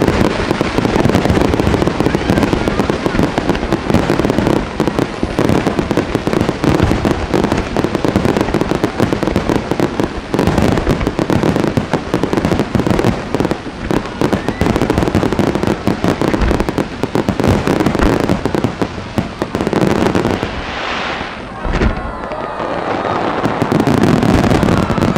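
Aerial fireworks barrage: shells bursting in dense, rapid succession, overlapping bangs and crackle with hardly a gap, easing briefly near the end before building again.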